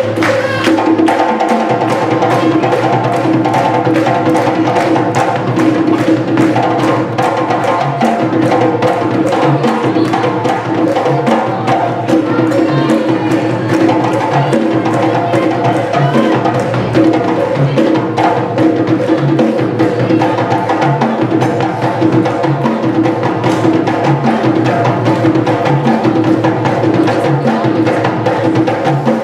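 Dance music with a fast, steady percussion beat over held tones.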